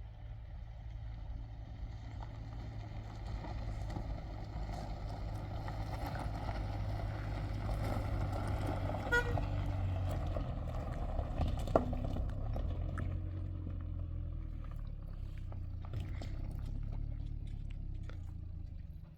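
An engine running steadily, growing louder towards the middle and then easing off, with a few scattered clicks and a sharp knock about two thirds of the way in.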